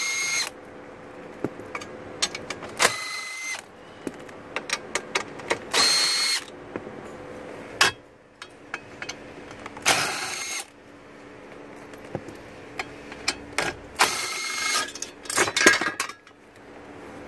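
Cordless drill turning a 10 mm socket on an extension, running in about five short bursts of under a second each as it backs out dashboard bolts. Sharp clicks and rattles of the tool and bolts come between the bursts.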